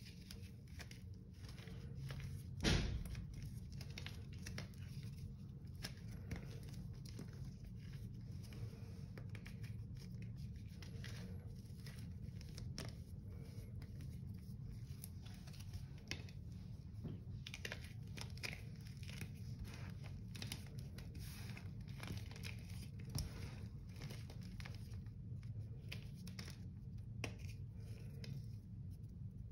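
Dried Comet cleanser slabs being crumbled and crushed by hand over a ceramic sink: a continuous run of gritty crunching and crackling, with one sharp, louder crack about three seconds in.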